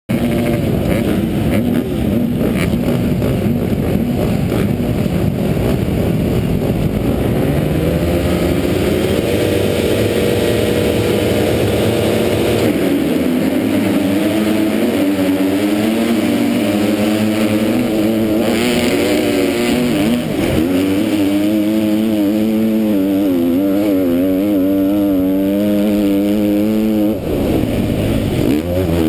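A KTM MX2 motocross bike at race pace, heard from the rider's helmet. At first several bikes run flat out together; then the rider's own engine climbs in pitch through the gears, with a shift about 13 seconds in, and later rises and falls quickly as the throttle is worked.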